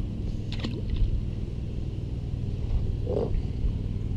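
Steady low rumble outdoors, with a few faint clicks about half a second in and a short rustle about three seconds in.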